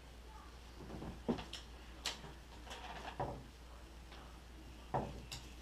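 Graphite fishing rods knocking and clacking against one another and the door as they are sorted through and one is drawn out of the bundle: a run of separate knocks and clicks, the loudest about a second in and near the end.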